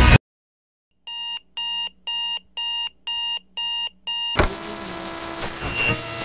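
Digital alarm clock beeping, seven short even beeps about two a second. About two-thirds of the way through the beeping stops and upbeat pop music starts.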